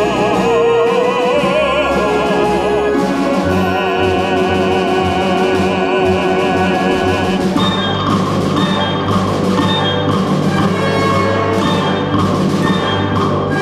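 Russian folk orchestra with voices performing a choral-orchestral work. A sung note held with vibrato ends about a second and a half in. From about halfway, a run of sharp struck accents joins the sustained ensemble.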